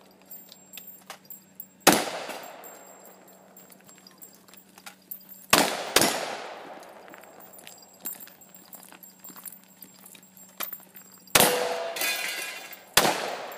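Shotgun shots: five blasts, one about two seconds in, a quick pair half a second apart a few seconds later, and two more near the end. Small clicks and clinks come between the shots.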